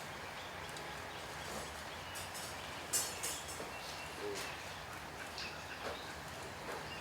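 Outdoor ambience: a steady background hiss with faint scattered clicks, and one short sharp knock about three seconds in.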